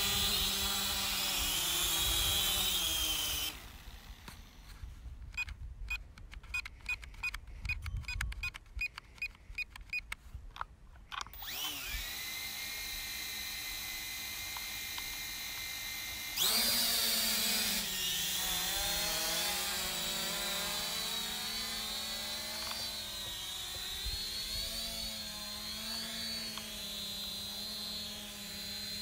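Small drone's electric motors and propellers whining, heard through its onboard camera. The motors stop about three and a half seconds in, leaving clicking and a short beep repeating every fraction of a second. Around twelve seconds the motors spin back up with a rising whine to a steady idle, then jump sharply louder about four seconds later as the throttle goes up, the pitch wavering as it flies.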